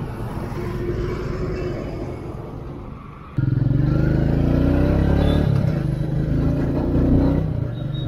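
Road and traffic noise for the first few seconds. Then, about three and a half seconds in, it gives way abruptly to a Royal Enfield Meteor 350's single-cylinder engine running under way, its note climbing as the bike accelerates, with wind on the microphone.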